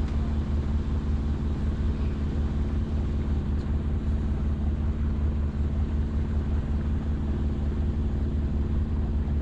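A sailboat's auxiliary engine running steadily while the boat motors under bare poles: a constant, even, low drone.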